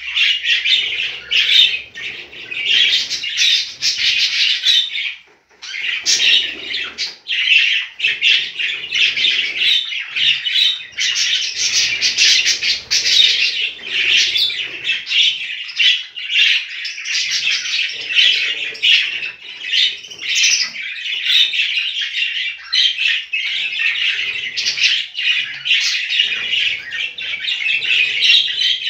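Several budgerigars chattering and chirping without letup, a dense warbling with a brief break about five seconds in.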